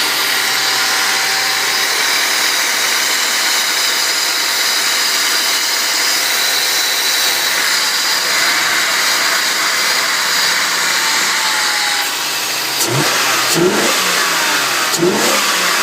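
Mercedes-Benz W126 500SEL's M117 5.0-litre V8 running steadily with a strong hissing breathing sound, then revved in a few quick throttle blips over the last three seconds.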